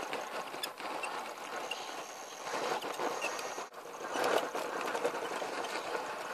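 1/10-scale RC rock crawler's small electric motor and geared drivetrain whirring as it crawls over gravel and rock, with the tyres crunching on the stones. The sound drops out briefly a little past halfway, then comes back louder.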